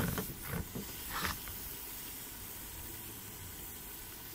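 Meat sizzling in its own juices in a cast-iron pot over a wood fire: a steady, fairly faint hiss, with a few short clicks in the first second or so.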